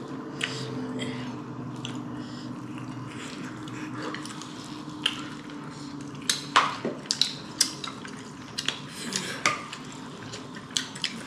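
Dishes and cutlery clinking as people eat: scattered light taps and clinks, more frequent in the second half, over a low steady hum.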